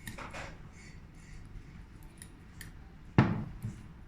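Small hard parts of a flashlight head being handled: a brief scrape, light clicks, and one sharp knock about three seconds in.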